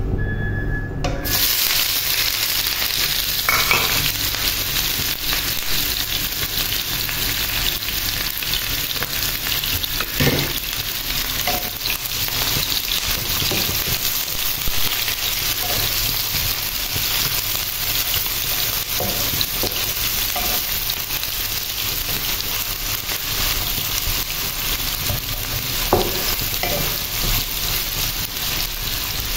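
Sliced onions dropped into hot oil in a non-stick frying pan: a steady frying sizzle starts suddenly about a second in and keeps on, with a few knocks of a wooden spatula as the onions are stirred.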